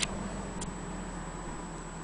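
Handling noise: a sharp click at the very start, then a fainter tick about half a second later, over a faint steady low hum.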